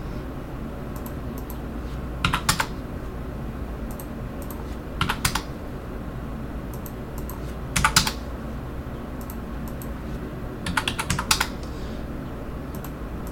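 Computer keyboard keys typed in short bursts of a few strokes every couple of seconds, entering dimension values, over a steady low hum.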